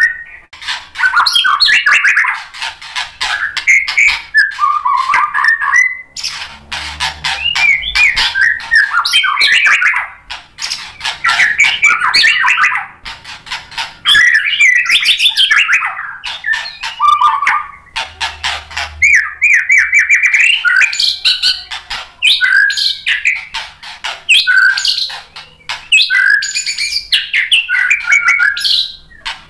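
White-rumped shama singing loudly. Its varied phrases mix fast rattling clicks with whistled notes, broken by short pauses every few seconds.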